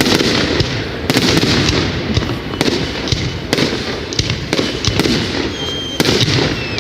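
Fireworks going off: about six loud bangs, roughly one every second or so, each followed by crackling, over a continuous rumble of further explosions.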